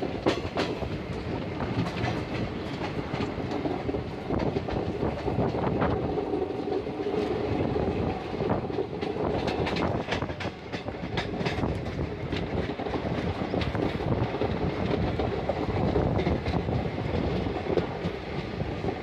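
Passenger train running along the track, heard from inside the coach: a steady rumble with the irregular clickety-clack of the wheels over the rail joints.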